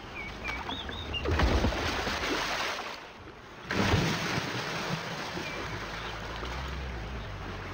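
Water splashing and churning as Nile crocodiles thrash and fight in the shallows. It comes in two surges: one from about a second in, then, after a brief lull, a louder one from nearly four seconds that carries on steadily.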